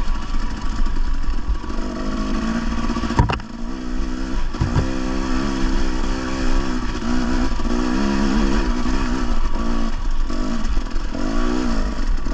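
Husqvarna TE 300 two-stroke dirt bike engine revving up and down under throttle. Two sharp knocks come about three seconds in and again about a second and a half later.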